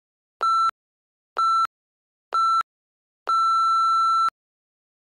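Workout interval timer countdown: three short beeps about a second apart, then one longer beep on the same high tone, signalling the end of a 30-second work interval.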